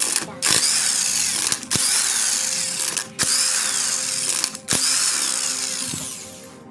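Electric impact wrench spinning and hammering in about five runs of a second or so each, with short breaks between them, as it undoes the bolts of a car AC compressor's top cover. The last run fades away near the end.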